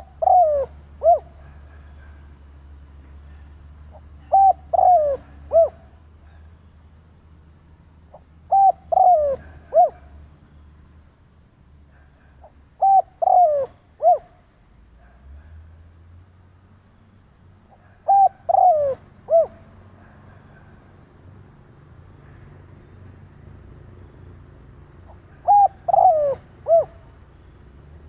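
Spotted dove cooing, its short phrase of three or four falling notes repeated six times, a phrase every four to seven seconds.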